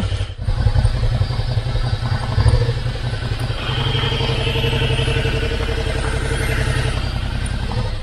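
Suzuki V-Strom 650XT's 645 cc V-twin engine running at low speed, settling into a steady idle for the last few seconds. It stops abruptly at the very end.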